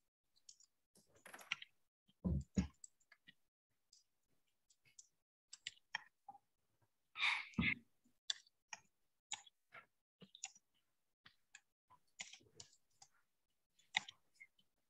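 Faint, irregular keystrokes on a computer keyboard as a line of text is typed, with a few louder knocks about two seconds in and again at about seven seconds.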